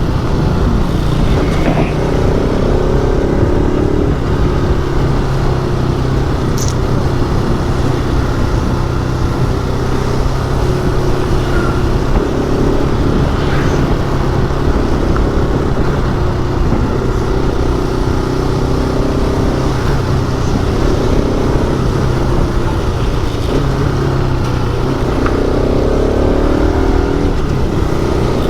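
Motorcycle engine running steadily while riding, its note climbing near the end as the bike speeds up, over a constant low rumble of wind and road noise.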